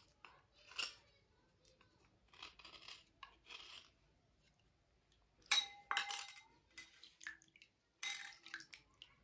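Slate cubes being scraped and cleaned: a series of short scraping strokes. A sharp clink rings briefly about five and a half seconds in and again near eight seconds, as the hard cubes knock together.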